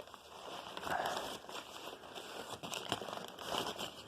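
Crinkling and rustling of a blown-out upright vacuum cleaner bag being handled, with scattered small clicks and no motor running.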